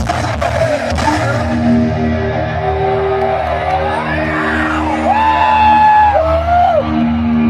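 Live rock concert sound, distorted as heard from within the arena crowd: held low notes under wailing notes that slide up and down, with yelling.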